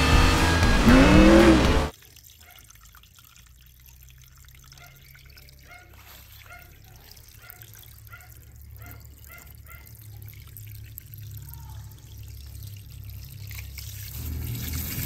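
A loud burst of music and car sound effects cuts off abruptly about two seconds in. Faint water trickling and dripping follows, with a string of small drips in the middle that gets slightly louder toward the end.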